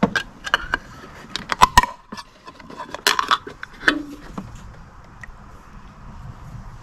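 Light metallic clinks and clicks from a metal can of engine oil treatment being handled. They are bunched in the first four seconds, then it goes quieter.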